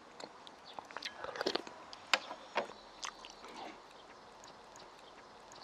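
Close-up mouth sounds of a person chewing stir-fried meat and peppers: soft irregular wet clicks and smacks, busiest in the first three seconds or so, then quieter.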